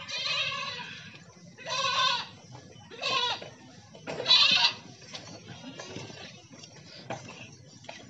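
Herd of goats bleating: four loud bleats in the first five seconds, the last the loudest, then quieter scattered bleats from the rest of the herd.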